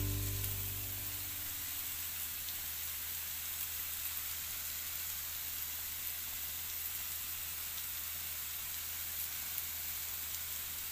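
Sliced zucchini frying in a pan: a steady sizzle with faint scattered crackles.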